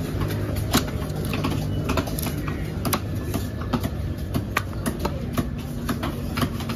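Steel cleaver chopping through black shark meat onto a wooden chopping block: a string of sharp, uneven knocks about once a second, with lighter taps between, over steady background noise.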